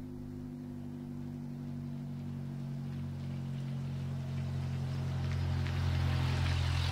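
Engine of a vintage 1930s-style car towing a teardrop trailer, running at a steady low speed as it drives slowly up to and past the listener, growing louder as it nears, with tyre and road noise rising near the end.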